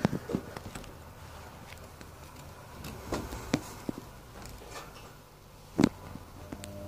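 A canary moving about its wire cage: a few short knocks and taps of its feet on the perches and bars, several at the start, a couple in the middle and the loudest near the end.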